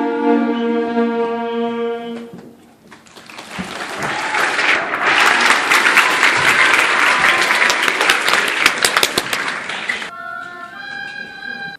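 Held notes from a student instrumental ensemble end about two seconds in; after a short pause the audience applauds for several seconds, and near the end an instrument starts playing a few sustained notes.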